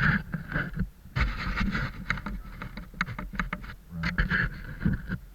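Rustling and scraping of movement close to the microphone, with a quick run of small clicks and knocks in the middle.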